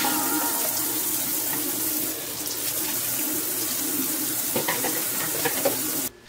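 Water running from a kitchen faucet into the sink in a steady rush, with a few light knocks near the end, then shut off suddenly about six seconds in.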